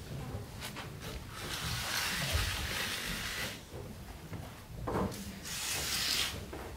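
A long wooden pole scraped across a dirt floor in two long strokes, the second shorter, with a knock between them.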